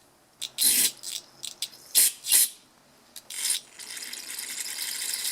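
Aerosol carburetor cleaner sprayed through a two-stroke carburetor's fuel screen: several short hissing bursts, then a steady spray of about two and a half seconds starting near the end.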